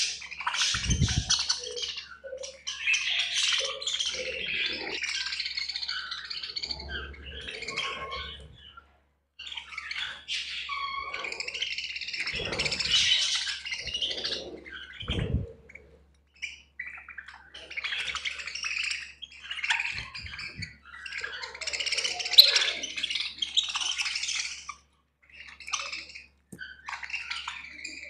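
A flock of budgerigars chattering and chirping in bouts of a few seconds, broken by short silences. A couple of low thumps show up among the chirps.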